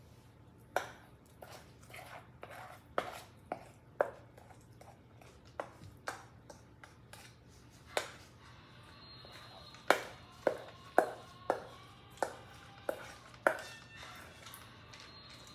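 Spoon knocking against a metal mixing bowl as cookie dough is scooped onto a baking sheet: a string of irregular sharp clinks, coming quicker and louder for a few seconds past the middle.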